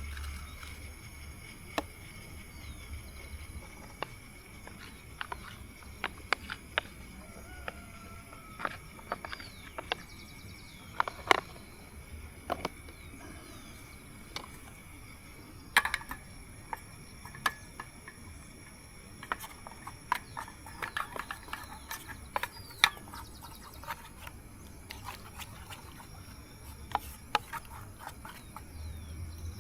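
Insects calling with steady high-pitched tones, with scattered sharp ticks and clicks throughout and a few short chirps.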